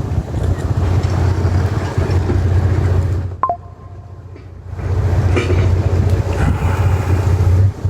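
Low, steady rumble of wind buffeting the microphone, dropping away for about a second and a half midway.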